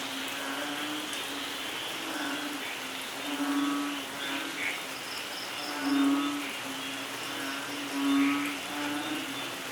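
Steady rain falling, with birds calling over it: a short low hooting note repeated every second or two, and a brief run of high chirps about halfway through.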